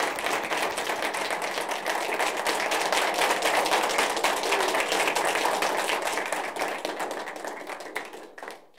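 Audience applauding at the end of a reading: dense hand claps that swell to a peak about halfway through, then die away near the end.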